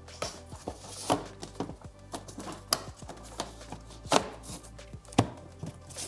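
Sharp knocks and taps of hands pressing a plastic motorcycle body panel into place, its tabs snapping into rubber grommets, at irregular spacing about once a second, with background music.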